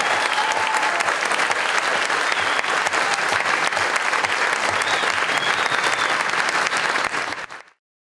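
Audience applauding, a dense patter of clapping that fades out quickly near the end.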